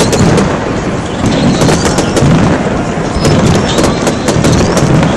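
Aerial firework shells bursting in a display: a dense, unbroken run of bangs and crackles, many overlapping reports every second.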